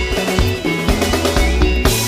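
Live Congolese dance-band music: drum kit and bass guitar playing a steady beat, with the high end brightening near the end.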